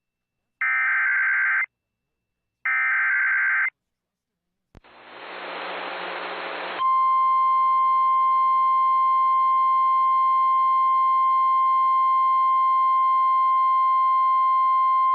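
Emergency Alert System SAME header data bursts: two buzzy, chirping digital bursts about a second each, a second apart. After a short silence comes a click and about two seconds of hiss. Then, about seven seconds in, the steady single-pitch 1050 Hz weather warning alarm tone starts and holds.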